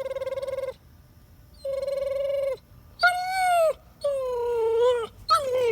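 Dog howling in five drawn-out howls. The first two hold a steady, wavering pitch; the later ones rise and then fall away.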